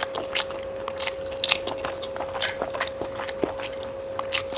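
Close-miked chewing of pork and bamboo shoot curry: irregular wet mouth clicks and crunches, several a second. A thin steady tone sits underneath.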